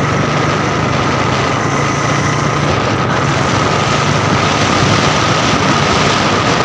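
Motorcycle running steadily at speed, under a dense rush of wind and road noise with a thin steady whine; a low engine hum fades about halfway through.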